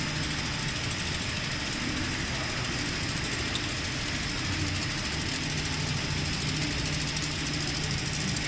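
Instant noodle production line machinery running: a steady mechanical hum with a faint high whine.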